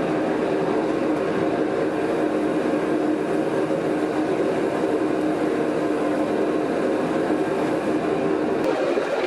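Blacksmith's forge running steadily: a loud, even rush of air with a low hum in it, which thins a little near the end.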